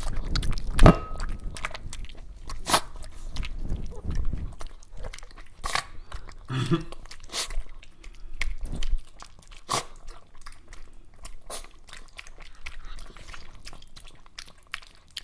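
Small dogs chewing and crunching treats: irregular crunches and clicks of teeth on food, busier in the first few seconds.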